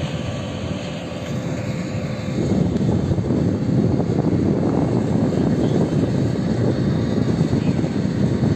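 Canadair water bomber's twin turboprop engines running on the ground, a steady engine and propeller noise that grows louder about two seconds in and then holds.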